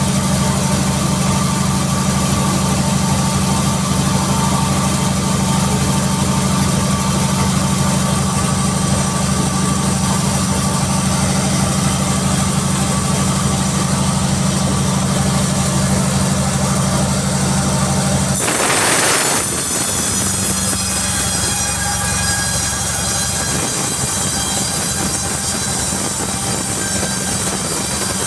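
Sawmill machinery running with a steady low hum. About two-thirds of the way in there is a brief loud rushing burst, after which the low hum drops away and a higher, many-toned whine carries on.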